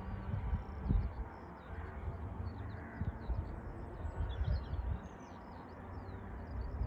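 Small birds chirping, many short high chirps in quick succession, over a low, uneven rumble.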